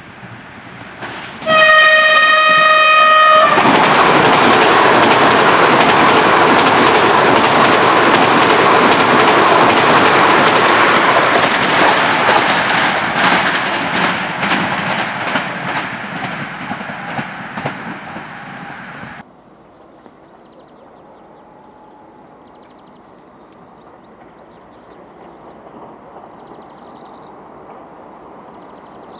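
Hyundai Rotem HRCS2 electric train sounding one horn blast of about two seconds, then passing with the rolling noise of its wheels and a quick, regular clickety-clack over the rail joints. The passing noise slowly fades and cuts off suddenly about nineteen seconds in, leaving only faint background.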